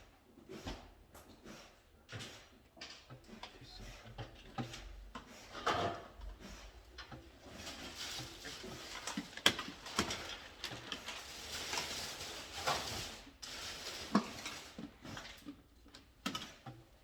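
Irregular small clicks, taps and knocks with a stretch of rustling and scraping in the middle, from hands working with tools and small parts. The sharpest knocks come a little before halfway and again about three quarters of the way in.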